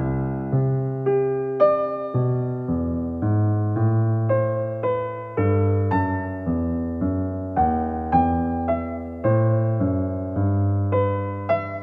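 Background piano music: a gentle melody of struck notes, about two a second, over low sustained bass notes.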